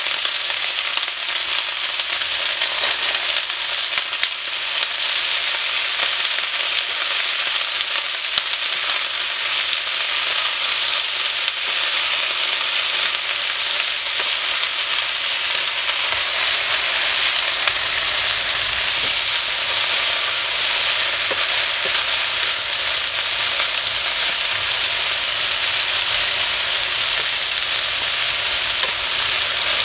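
Meat cutlets and green beans frying in hot pans, a cast-iron skillet and a stainless steel pan: a steady, dense sizzle with fine crackling.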